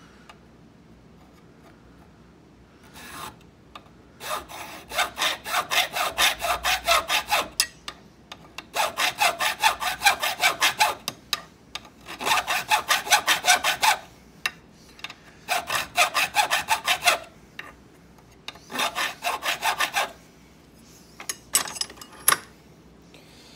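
Hand file rasping across the bit of a bit key blank held in a vise, cutting the ward notch, in quick, hard strokes several a second. The filing comes in several runs broken by short pauses, with only a few single strokes near the end.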